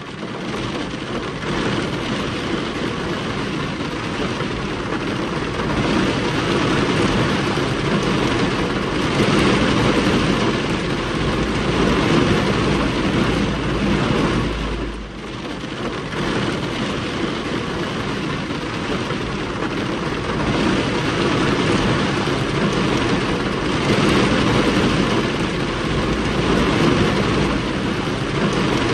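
Heavy rain hitting a car's windscreen and body, heard from inside the car, with strong wind gusting around it and a low rumble. The noise swells and eases with the gusts and drops briefly about halfway through.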